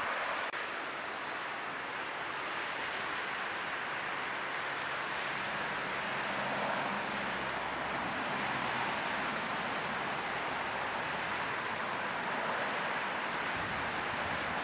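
Steady rush of water: a low fountain-type geyser splashing at its vent on a riverbank, together with the flowing river. A faint low hum comes in around the middle.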